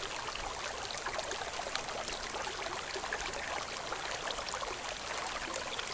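Steady trickle of water in a hydroponic ebb-and-flow bucket system, an even wash with many tiny ticks throughout.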